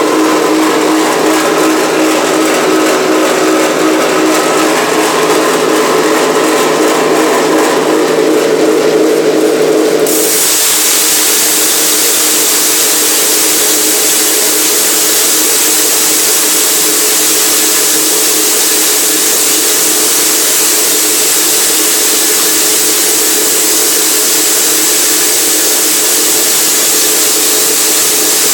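Laboremus forage grinder running on its belt-driven electric motor: a loud, steady whir with a hum. About ten seconds in the sound changes abruptly and turns brighter and hissier.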